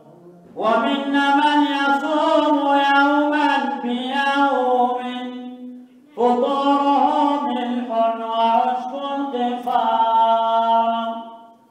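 Unaccompanied male singing of an Arabic Sufi qasida, in the samaa style: two long phrases, one line of verse each, with held and ornamented notes and a short breath about six seconds in.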